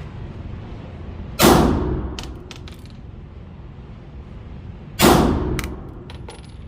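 Two slow, deliberate shots from a Glock 43X 9mm pistol, about three and a half seconds apart. After each shot come a few light metallic clinks of the ejected brass casings landing.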